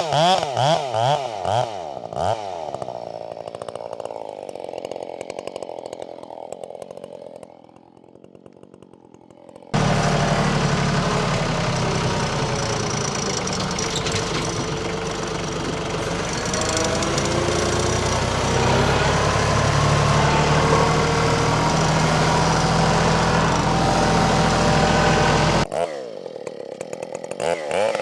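Husqvarna 572XP two-stroke chainsaw revving in quick throttle blips, then dropping back and quietening. About ten seconds in, a loud, steadier and deeper engine sound starts suddenly, runs for about sixteen seconds and stops abruptly. The saw then blips its throttle again near the end.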